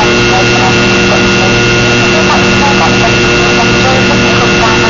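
Cabin noise of a Fokker 70 climbing out after take-off: its rear-mounted Rolls-Royce Tay turbofans run as a loud, steady rush with several steady whining tones over it.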